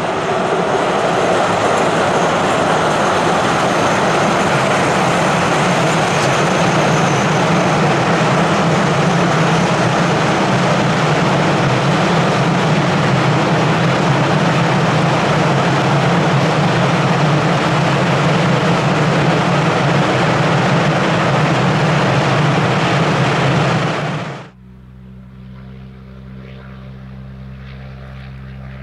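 Freight train of car-carrier wagons hauled by two ČD Cargo 'laminátka' electric locomotives passing, a loud steady rumble and rush of wheels on rail. About twenty-four seconds in it cuts off suddenly to a much quieter steady hum with a few low tones from a distant train.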